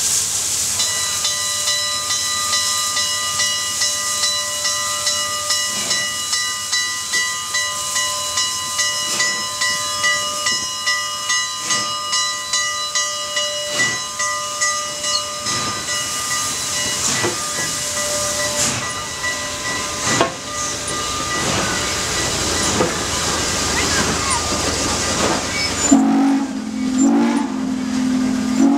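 Southern Pacific 4449, a GS-4 4-8-4 steam locomotive, starting away: its bell rings in an even rhythm for the first two-thirds, over steam hissing from the cylinder cocks and slow exhaust beats. Near the end the bell stops and a lower, wavering whistle-like tone comes in as the train rolls past.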